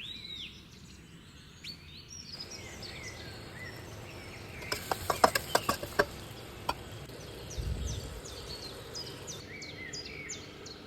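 Small birds chirping in short, repeated calls, with a quick run of sharp clicks about five seconds in and a brief low thump near eight seconds.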